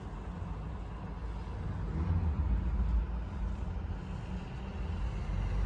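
Subaru Forester's flat-four boxer engine idling, a steady low rumble heard from inside the cabin, growing a little louder about two seconds in.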